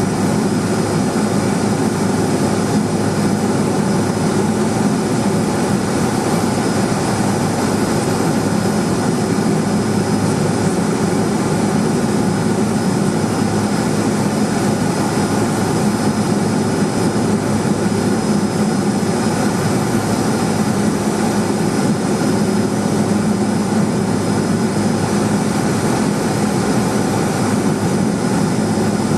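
Steady in-flight cabin noise of a Cessna 210 Silver Eagle's single turboprop engine: an even drone with a thin high whine over it.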